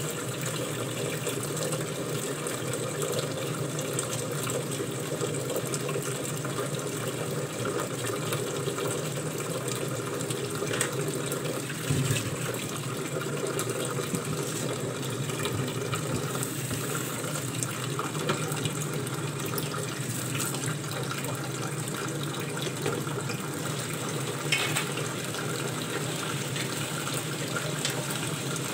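A steady rushing noise in a kitchen, with a few light knocks and clatters of utensils and a louder thump about twelve seconds in.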